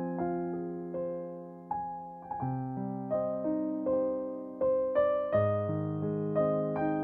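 Background music: a slow piano piece, notes and chords struck a few times a second and left to ring out.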